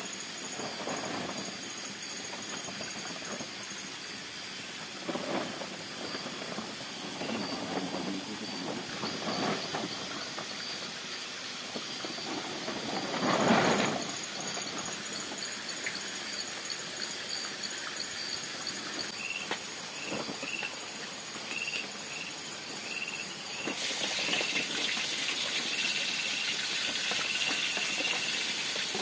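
Night-time forest insects buzzing and chirping steadily, with a brief loud rustle about halfway through and a regular pulsing chirp joining later on. Near the end a steady hiss comes in, from a wok steaming over a wood fire.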